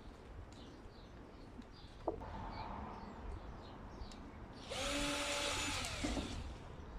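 Power drill pre-drilling a hole with a thin bit. It runs softly with a steady whine from about two seconds in, then runs louder and higher for about a second and a half near the end.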